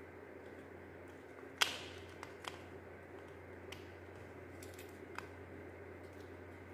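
Small clicks and taps of plastic parts being handled as the opened housing of a handheld mini fan and the wired block inside it are fitted together, the sharpest click about a second and a half in, over a steady faint hum.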